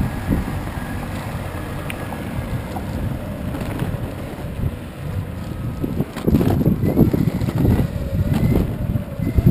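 Wind on the microphone and board wheels rolling over pavement while riding along behind a mountainboard. About six seconds in, the rumble grows louder and rougher as the ride moves from smooth asphalt onto paving slabs.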